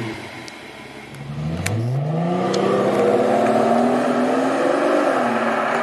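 Rolls-Royce Phantom's 6.75-litre V12 engine accelerating: after a brief lull it rises smoothly in pitch and loudness, then holds a steady higher note. A few light clicks sound in the first two seconds.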